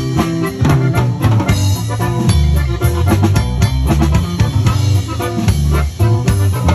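Live corrido band playing: a drum kit keeps a steady beat under a bass line and guitars.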